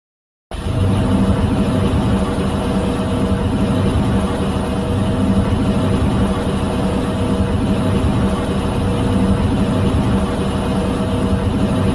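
A steady, heavy mechanical rumble with a low hum, like a large engine or machine running, starting suddenly about half a second in after a moment of silence.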